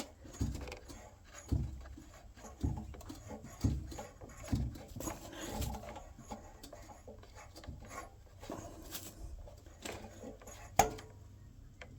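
Hands working at the hard, stiff rubber fuel line and fittings on a petrol pressure-washer engine: a run of rubbing, scraping strokes with dull knocks about once a second, then quieter fiddling and one sharp click near the end.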